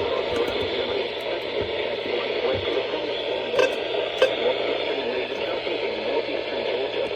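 Steady static hiss from a radio receiver, with two short clicks about three and a half and four seconds in.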